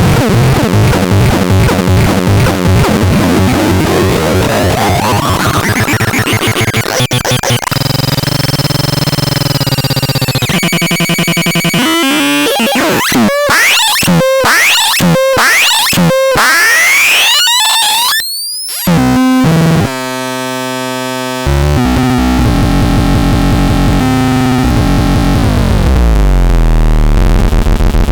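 Electronic synthesizer producing harsh, noisy, glitchy tones: a rising sweep, held droning tones, a run of sharp pulses about once a second with rising glides, then a long falling sweep near the end.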